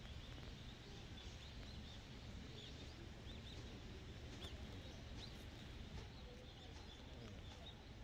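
Faint rustling of dry fallen leaves as a crow pokes its beak through them, over a low steady rumble.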